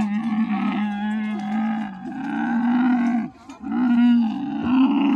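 Dromedary camel groaning: two long, low, steady calls with a rattling gurgle in them, the first about three seconds long, the second following after a short break.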